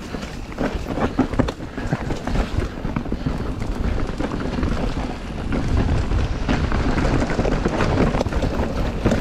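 Mountain bike riding fast down a rough enduro trail: tyres rolling over dirt and roots, with the bike rattling and clattering in irregular knocks over a steady low rumble.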